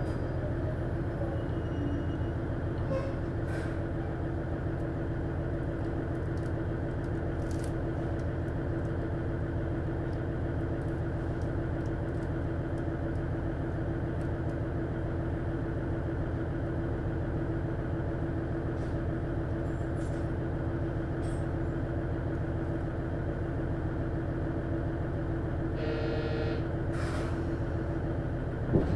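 Diesel engine of a JR East KiHa 110 railcar (DMF14HZA) idling steadily while the railcar stands at a station, heard from inside the cabin as a constant hum. Near the end a short beeping tone sounds, then a sharp knock.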